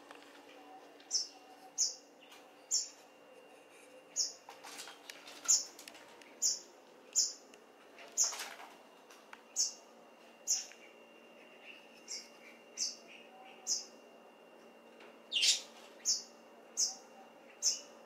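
White-breasted waterhens giving short, high-pitched peeps, about one a second, with a few brief scuffing or rustling noises among them.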